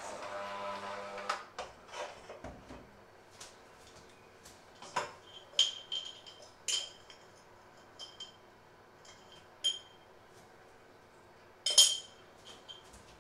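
Electric hand mixer running steadily in a steel bowl of dough, switched off after about a second. Then comes a scatter of light metallic clinks with short ringing, like kitchen utensils and dishes being handled, the loudest near the end.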